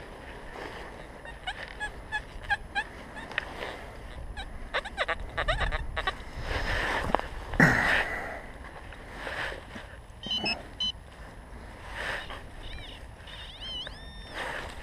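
XP Deus metal detector giving short pitched signal beeps and rising and falling tones while a target is pinpointed, mixed with the rustle and scrape of digging in dry leaf litter and forest soil.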